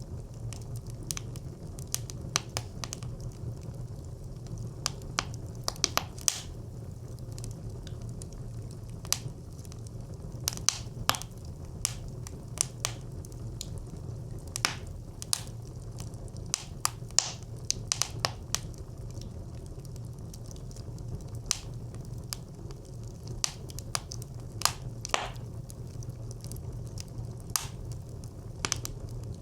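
Wood fire crackling inside a brick clay stove: a steady low rumble of flames with frequent sharp, irregular pops and snaps.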